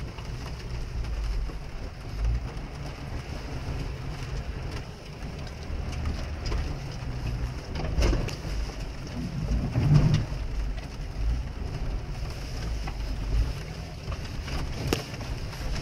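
Jeep engine running, heard from inside the cabin as it drives through mud, with rain pattering on the windshield. There is a steady low drone with occasional knocks, and it swells louder about ten seconds in.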